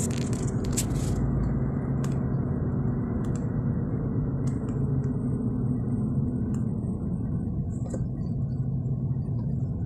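A car driving along a road, heard from inside the cabin: a steady low rumble of engine and tyre noise with a faint hum running through it.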